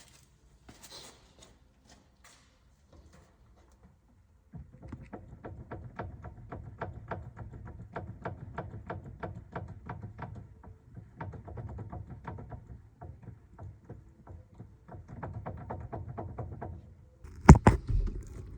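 Rapid, rhythmic knocking from a Hyundai Santa Fe DM steering column, about four or five knocks a second, the play-related clunk that the column is being worked to show. A louder single thump comes near the end.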